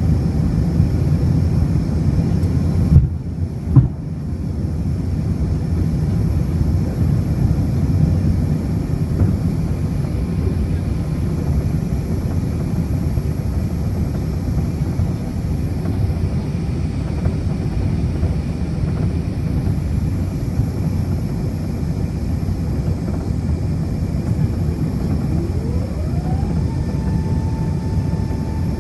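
Cabin noise aboard an Airbus A380 in flight: a steady roar of airflow and engines, with two sharp clicks about three seconds in. Near the end a whine rises, holds at one pitch and then falls away.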